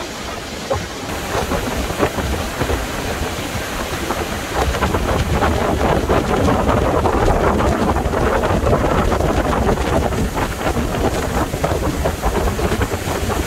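Wind buffeting the microphone and rushing water aboard a jet boat travelling fast on a river: a dense, loud rush with a heavy, uneven low rumble, growing louder about four and a half seconds in.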